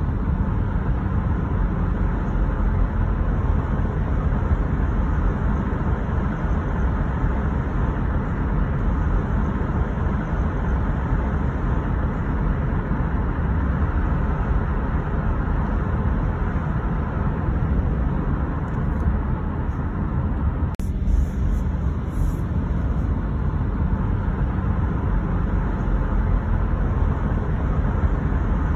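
Steady road noise of a car driving: tyre and engine rumble, heaviest in the low end, with a brief click about two-thirds of the way through.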